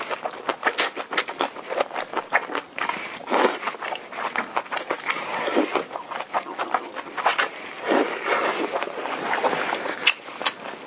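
Close-miked mouth sounds of eating soupy rice noodles: several long wet slurps as noodles are drawn in, between quick smacking clicks of chewing.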